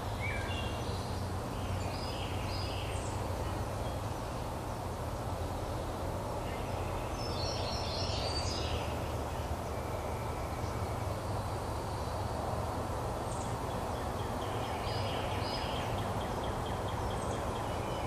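Outdoor background of a steady low rumble, with a few short clusters of high bird chirps near the start, in the middle and again near the end.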